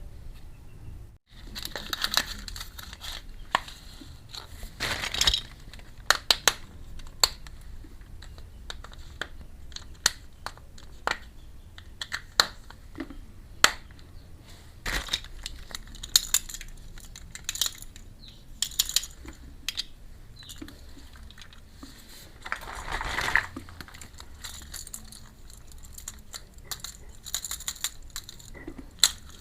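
Small plastic miniature toy-kitchen pieces being handled and set down: many light irregular clicks and clinks. Twice, packaging crinkles or tears briefly.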